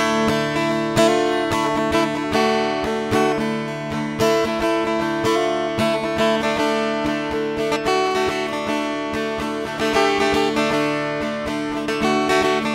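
Steel-string acoustic guitar in DADGAD tuning playing an original instrumental piece: notes plucked in quick succession over chords left ringing.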